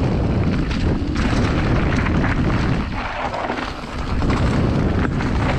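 Mountain bike running fast down a dirt trail strewn with dry leaves: a steady rumble of tyres over the ground and air rushing past, with frequent knocks and rattles from the bike over bumps.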